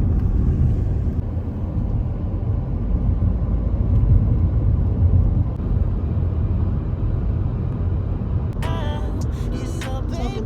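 Steady low rumble of road and engine noise inside a moving car. Music with wavering tones comes in near the end.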